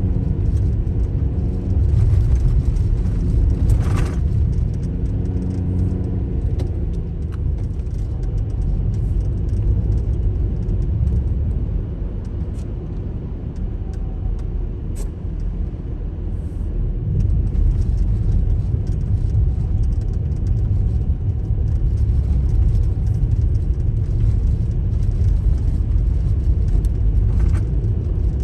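Daihatsu Taft kei SUV driving on a snow-covered road: a steady low rumble of tyre, road and engine noise, with a faint engine hum in the first few seconds and a few short clicks.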